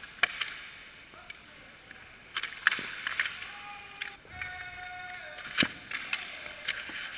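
Ice hockey play at the net: skate blades scraping and carving the ice, with several sharp clacks of stick and puck, the loudest about five and a half seconds in.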